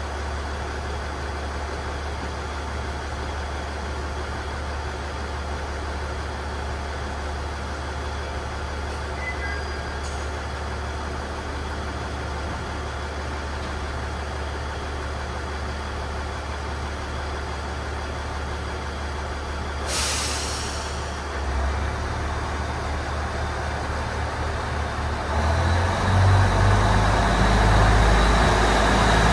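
Koumi Line diesel railcar idling steadily at the platform, with a short sharp hiss of air from its brakes about two-thirds of the way through. Over the last few seconds its engine rises and gets louder as the train starts to move off.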